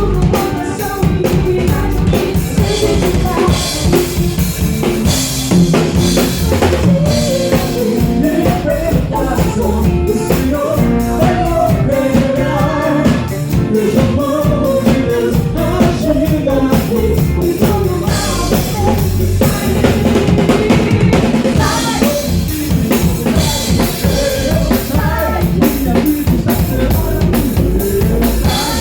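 Live gospel band playing: a drum kit with kick and snare keeps a steady beat under bass and a sung melody.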